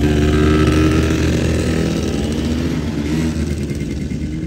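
Small quad bike (ATV) engine running as it drives past close by, its pitch wavering and dropping over the first couple of seconds.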